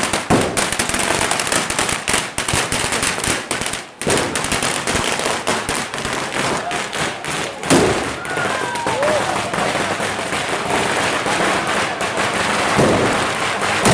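Fireworks and firecrackers going off in a dense, continuous run of sharp bangs and crackles, with a few brief shouts from the crowd among them.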